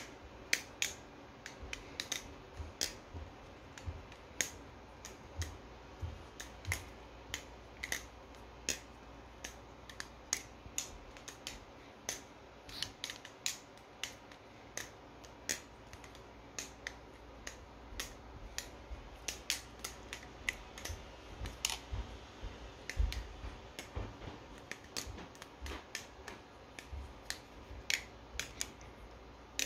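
Nautilus-clone balisong (butterfly knife) trainer being flipped, its handles and blunt trainer blade clicking together as they swing open and shut. Sharp, irregular clicks come a few times a second.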